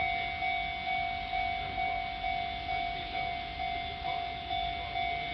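Japanese level-crossing warning bell ringing steadily, an electronic ding repeating about twice a second, the signal that a train is approaching and the crossing is closed.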